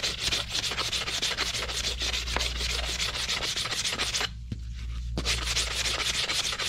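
Corroded, rusty metal roller axle from a snowmobile's rear suspension being hand-sanded with coarse sandpaper, about 150 to 200 grit, to take off the rust: quick back-and-forth rubbing strokes that stop for about a second about four seconds in, then resume.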